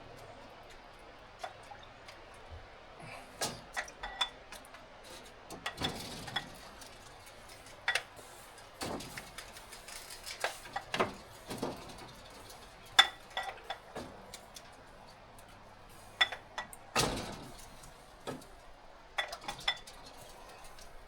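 Dishes and metal utensils being handled: a string of separate clinks and knocks, some with a brief metallic ring, at irregular intervals.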